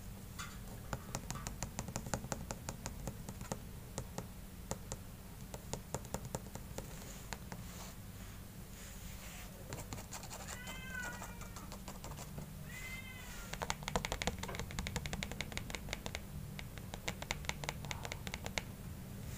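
Kittens playing: a rapid run of small clicks and scratches, such as claws on cardboard and floor, with a kitten meowing twice about halfway through.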